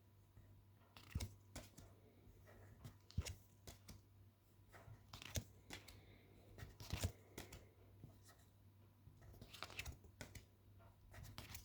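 Pokémon trading cards being handled and slid past one another, giving faint scattered rustles and soft clicks.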